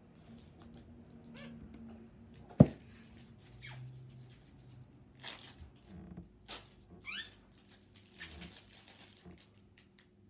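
Plastic trading-card sleeve packaging being handled and torn open: scattered crinkling rustles, a sharp click about two and a half seconds in, and a few short squeaky glides.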